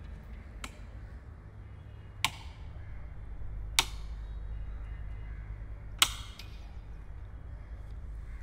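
Wall light switches flipped one after another: four sharp clicks spread over about six seconds, over a low steady hum.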